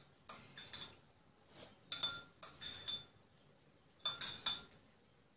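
A spoon clinking against a bowl while eating soup: short separate taps with a brief ring, coming in small clusters with pauses between.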